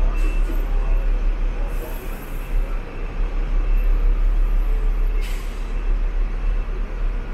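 Hong Kong double-deck tram running, heard from on board: a steady low rumble with rattle and road noise, and two short hisses about two and five seconds in.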